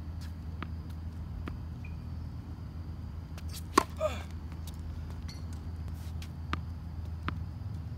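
A tennis ball bounced a few times on a hard court, with a loud sharp pop of a racket striking the ball on a serve about halfway through, followed by a brief rushing sound. A steady low hum runs underneath.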